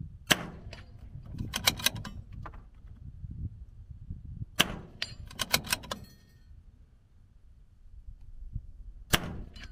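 A .22 LR bolt-action rifle fired three times, about four and a half seconds apart, each shot followed about a second later by a quick run of clicks as the bolt is worked to chamber the next round.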